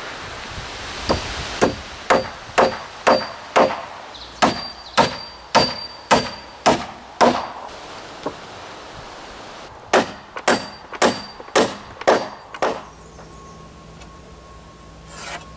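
Hammer driving nails into a wooden deck beam: a run of steady blows, about two a second, each with a short metallic ring, pausing briefly partway through.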